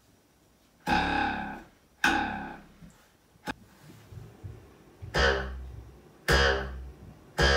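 A wooden meter stick clamped to a table edge and plucked, twanging five times with a buzzy pitched tone that dies away within about a second each time. Its overhang is short enough to vibrate fast and give an audible pitch.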